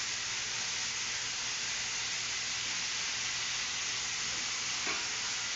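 Food frying in a pan on a gas stove, a steady sizzling hiss, with a light knock near the end.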